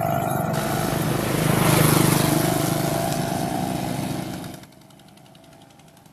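Small engine running steadily, loudest about two seconds in, then dropping away sharply after about four and a half seconds.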